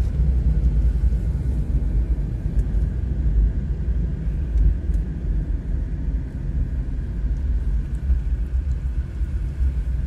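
Steady low rumble of a car's engine and tyres on the road, heard from inside the moving car's cabin.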